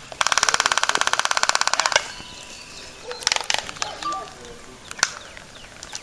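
Laysan albatrosses' courtship dance: a rapid, even clatter of bill-clapping lasting about two seconds, followed by a few single clacks and short calls.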